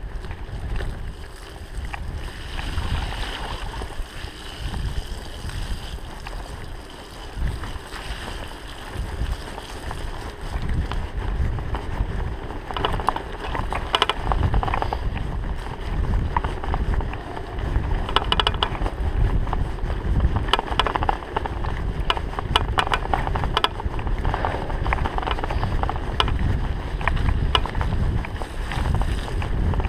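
Wind buffeting the microphone as a Trek 4500 mountain bike rolls fast down a muddy dirt road, with the tyres on the surface and the bike rattling over bumps. The clatter gets busier about halfway through.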